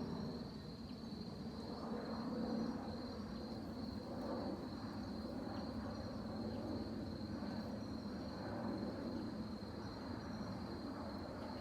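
A steady, high-pitched insect trill, like a cricket, that runs on without a break over a low, even rumble of outdoor background noise.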